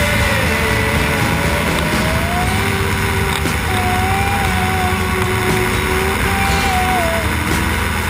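Challenger II ultralight's two-stroke engine and propeller droning steadily in flight.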